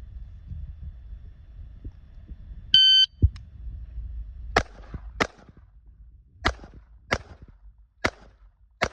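A shot timer beeps once, then six pistol shots follow in a Bill Drill drawn from the holster. The first shot comes about 1.8 s after the beep and the second quickly after it. A longer pause follows before the last four shots come at a steadier pace.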